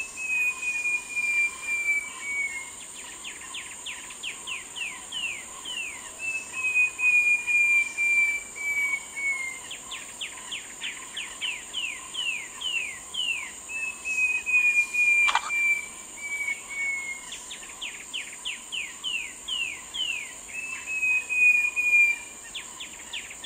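Short-tailed babbler singing: a quick run of short, down-slurred notes followed by one long, slowly falling clear whistle, the phrase repeated four times. A steady high insect drone runs behind.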